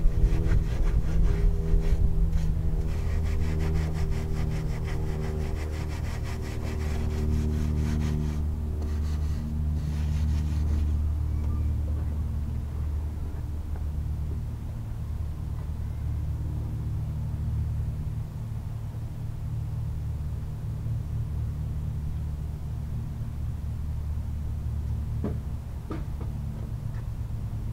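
Case 1190 tractor engine running at a steady speed. It is rougher and noisier for about the first ten seconds, then settles into a steady low drone.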